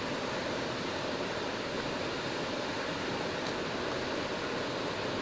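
Steady rush of a small creek waterfall, water spilling over granite boulders into a pool.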